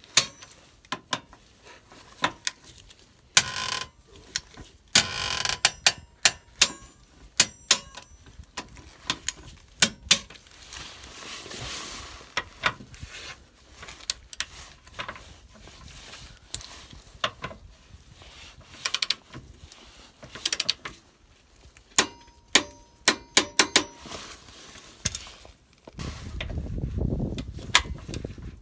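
A hand ratchet clicking in short runs, with metal clinks of socket and wrench, as the lower suspension arm's mounting bolts are tightened to torque plus an angle. A low rumble comes in near the end.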